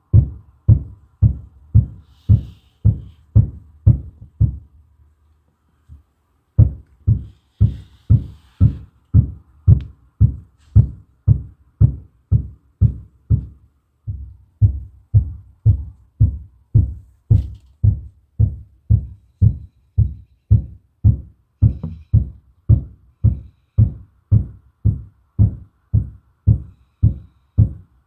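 Heavy, muffled banging coming through the ceiling from the apartment above, in a steady rhythm of about two and a half thuds a second. It pauses for a couple of seconds about five seconds in, then carries on.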